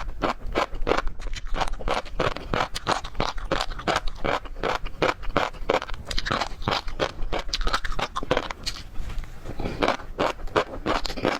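Close-miked chewing of seafood: fast, crunchy, wet strokes several a second, easing off briefly about nine seconds in.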